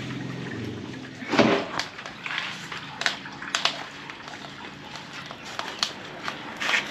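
Footsteps in flip-flops and a few short knocks and clicks as a plucked chicken is carried to a small clay charcoal stove and set over the coals, with one louder short sound about one and a half seconds in.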